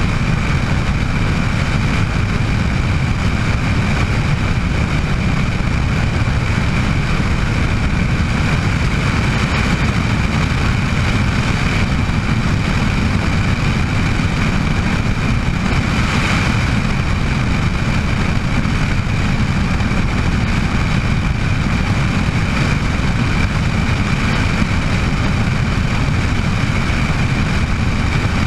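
Bell 206 JetRanger helicopter's Allison 250 turboshaft engine and rotor running steadily, a loud low drone with a steady high whine over it. A brief swell of hiss comes about 16 seconds in.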